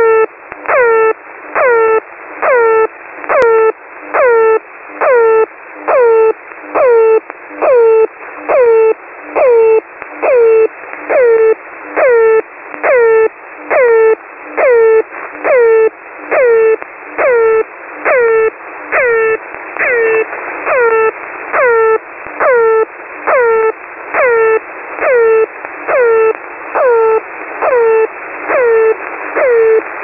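The "Air Horn" shortwave signal, a suspected Russian military channel marker, received on a shortwave radio. A buzzy air-horn-like blast repeats about once a second, each one swooping down in pitch at its start and then holding, with radio static between the blasts.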